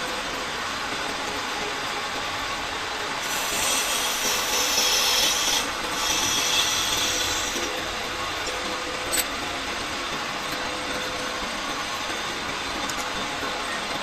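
Metal lathe running steadily while a cutting tool scrapes the spinning brass workpiece for about four seconds in the middle, briefly lifting off partway through; a single sharp click near the end.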